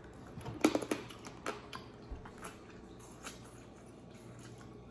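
Close-up mouth sounds of a person eating boiled crawfish, smacking and sucking the meat from the shells. There is a burst of wet smacks about half a second in, then a few softer smacks.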